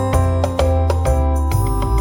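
Upbeat background music: a light, playful keyboard tune over a steady bass line that changes note about every half second.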